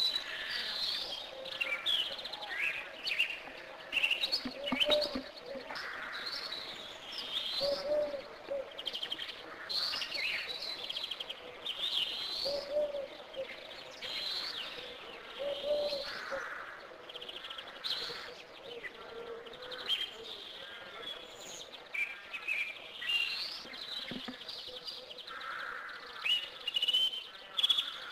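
Several birds chirping and calling, a steady run of short chirps, trills and whistled notes, with some lower calls now and then.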